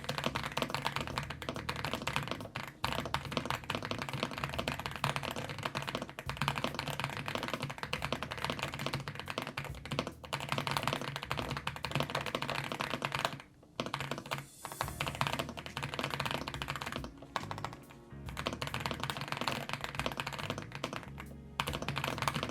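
Fast, continuous typing on an Epomaker EA75 mechanical keyboard with Reaper linear switches: a steady run of clacky keystrokes, stopping briefly twice along the way.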